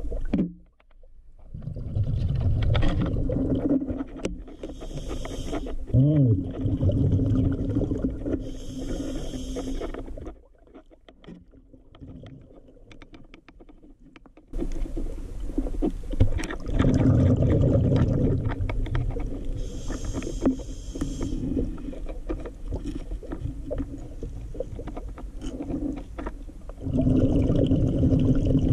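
Scuba diver breathing through a regulator underwater: the low rumble of exhaled bubbles every few seconds, alternating with a short hiss on each inhale, with a quieter stretch about a third of the way in.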